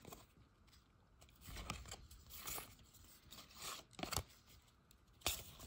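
Faint rustling and snapping of Upper Deck hockey cards being thumbed through by hand, each card slid off the front of the stack onto the back. There are a few sharper card snaps about four and five seconds in.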